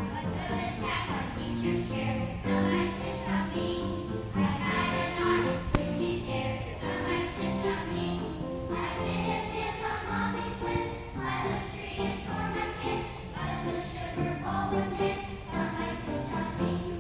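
Music: a choir with children's voices singing a Christmas song over instrumental accompaniment.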